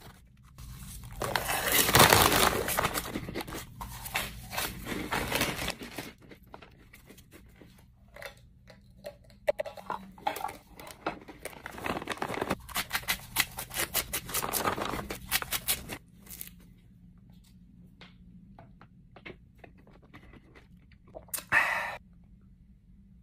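Crinkly plastic snack bags crackling and rustling as a hand rummages in them, loudest about two seconds in, with crunchy cheese puffs being handled and chewed.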